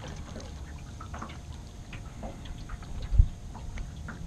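Water lapping and dripping around a small aluminium jon boat, with scattered light clicks from handling fishing gear. One loud low thump about three seconds in.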